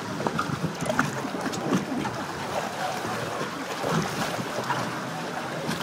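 Water rushing and splashing along a flume-ride channel as the riders' boat speeds down it, a steady churning with small splashes and knocks.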